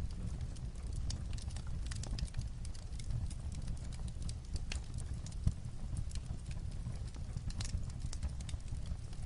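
Fireplace crackling together with light rain on a roof: a steady low rumble under scattered sharp crackles and ticks, with one louder knock about five and a half seconds in.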